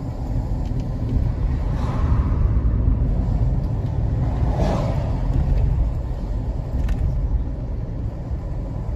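Low, steady rumble of a car driving along a city street: engine and tyre noise heard from inside the car, with a brief swell about halfway through.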